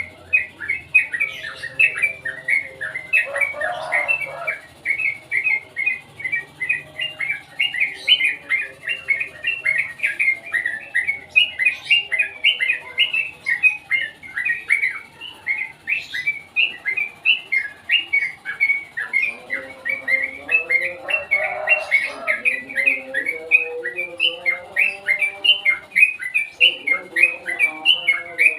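Crucukan (yellow-vented bulbul) calling without pause, a continuous run of short sharp chirps, about three a second. A lower, wavering warble joins in during the last third.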